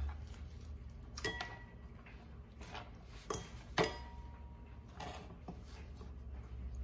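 Kitchen knife slicing a red bell pepper on a plastic cutting board: a few scattered taps and cuts of the blade against the board, the sharpest a little under four seconds in.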